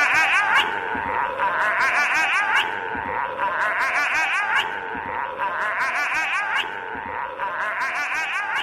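A short sound clip looping about every two seconds, each pass a warbling, laugh-like voice over a rising glide with a rapid crackle of clicks.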